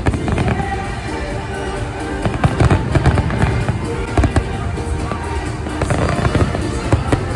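Fireworks going off in rapid, overlapping bangs and crackles, with several heavier booms in the middle, over music playing throughout.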